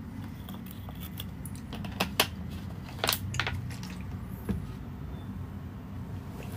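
A few sharp clicks and taps over a steady low hum: two about two seconds in, the second the loudest, then a small cluster about a second later and a single tap near four and a half seconds.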